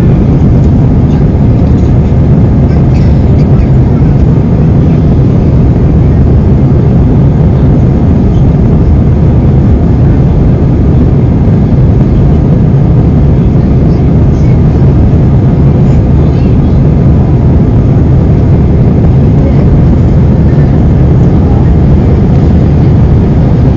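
Jet airliner cabin noise: a loud, steady low roar of the engines and rushing air, unchanging throughout.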